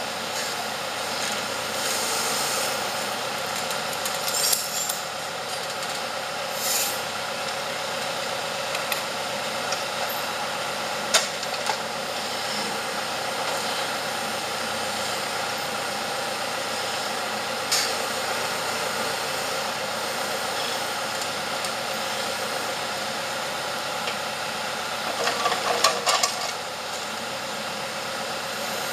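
Tractor engine running steadily while it powers the forwarder's hydraulic log-loader crane, with occasional sharp knocks as logs are handled and a quick cluster of clunks near the end.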